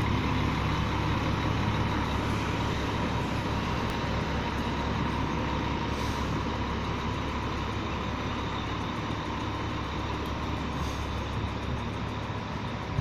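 Mercedes-Benz O500 RS bus's diesel engine running steadily and loudly, a deep even rumble with no revving.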